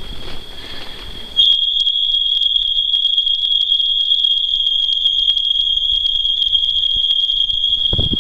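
A steady, high-pitched tone that starts abruptly about a second and a half in, replacing the rumble of wind and road.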